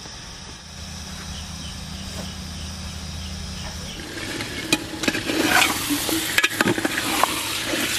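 Spicy mutton curry sizzling in a metal handi while a steel ladle stirs it and scrapes against the pot. The scraping and crackling start about halfway through; before that only a steady low hum is heard.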